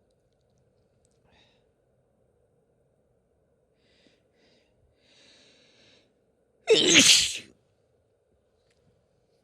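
A woman breathing faintly a few times, then sneezing once, loudly, about seven seconds in.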